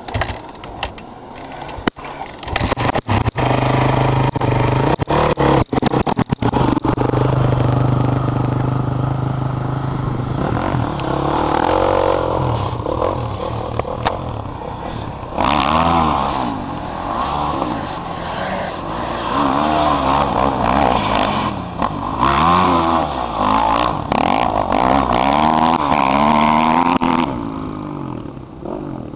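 Mitsubishi Galant VR-4's engine running hard at steady high revs, then revving up and down over and over as the car is thrown around on loose dirt. Sharp crackles come in the first few seconds.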